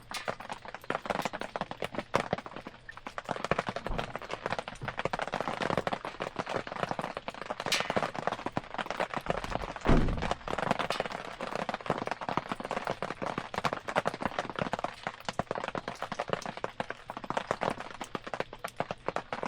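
A wood campfire crackling and popping in the rain, a dense irregular run of small snaps over the patter of rain, with one dull thump about ten seconds in.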